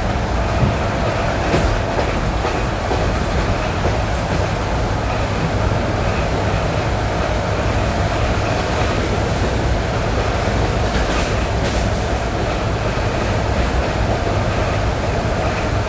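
ED9E electric multiple unit running on jointed track, heard from inside the carriage: a steady loud rumble with a few wheel clicks over the rail joints.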